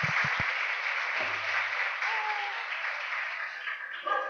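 Audience applauding, slowly dying away, with a few low thumps at the start.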